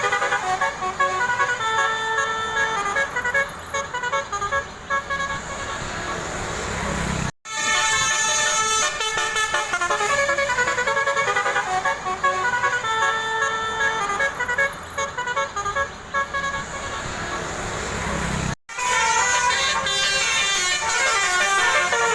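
Bus 'telolet' multi-tone horns playing quick tooting melodies of stepped notes, over a low rumble. The sound drops out abruptly twice.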